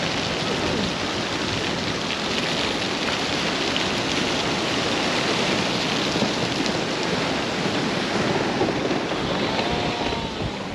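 Steady rushing noise of ocean surf.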